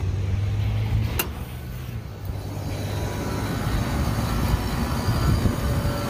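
Walk-in freezer's rooftop refrigeration condensing unit running steadily after a pressure switch replacement: a low hum from the compressor and condenser fan, with one sharp click about a second in.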